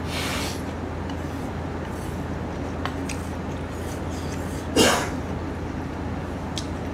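Mouth and eating noises of a man eating jjapagetti noodles with chopsticks: a breathy rush at the start, a few faint clicks, and one short throaty noise about five seconds in, over a steady low hum.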